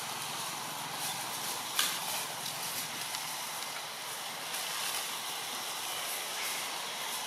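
Dry leaf litter rustling and crackling as baby macaques move and handle fallen leaves, over a steady outdoor hiss, with one sharper crackle about two seconds in.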